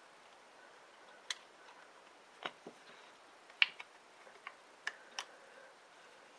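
A new piston ring being peeled on by hand over a Briggs and Stratton Model 28 piston: about six faint, sharp clicks and ticks of the ring against the piston, scattered over several seconds.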